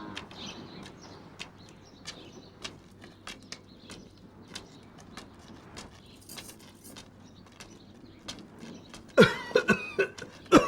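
Faint birds chirping in scattered short calls. Near the end comes a run of loud knocks and metallic rattling at a door.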